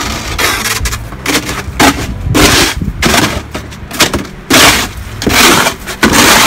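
Snow shovel blade scraping across a hard surface as it pushes snow, in several long strokes with short pauses between them.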